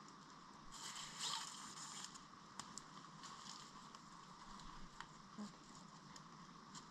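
Faint rustling and swishing of a GoLite Cave 1 tarp's fabric as it is handled and shifts, loudest about a second in, with a few light clicks later on.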